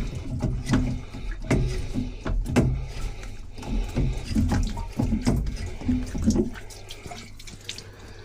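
Water splashing and sloshing with irregular knocks, over a steady low hum; it dies down over the last second or two.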